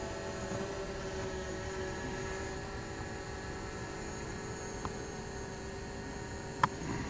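Camera drone's propellers whining steadily while it hovers above the car, with one sharp click near the end.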